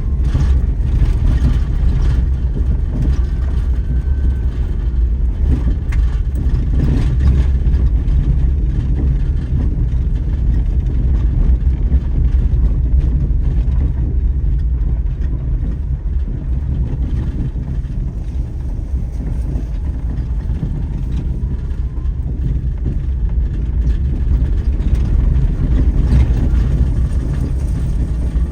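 Daihatsu Terios Kid kei SUV driving, its engine and road noise a steady low rumble.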